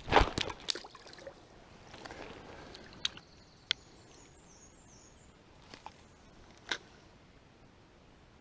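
A short splash as a small brook trout is released back into the stream, the loudest sound here, followed by a few sharp clicks from handling the spinning rod and reel.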